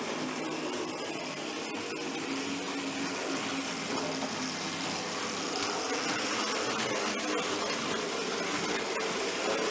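Märklin HO model train running past on its track: a steady electric-motor whirr with the rattle and small clicks of metal wheels over the rails.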